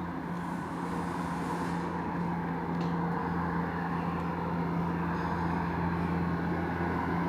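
Westbahn electric double-deck train approaching from a distance: a steady low hum under a spread-out rumble that slowly grows louder as it nears.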